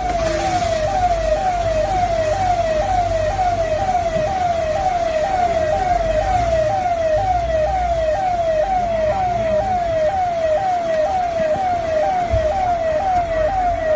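Siren wailing in a fast, regular up-and-down warble, about two sweeps a second, unbroken throughout, over a low rumbling noise.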